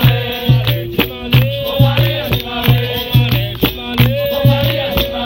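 Live capoeira roda music: a berimbau with its caxixi rattle over a steady, repeating drum beat.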